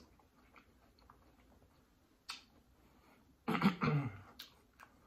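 Faint mouth and eating noises with small ticks and a sharp click a little after two seconds, then a short throat-clearing vocal sound, falling in pitch, about three and a half seconds in.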